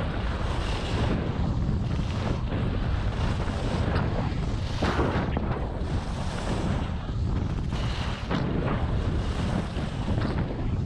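Wind buffeting the microphone of a skier's action camera at speed, a steady low rumble. Over it, the hiss of skis scraping the groomed snow swells on each turn, several times.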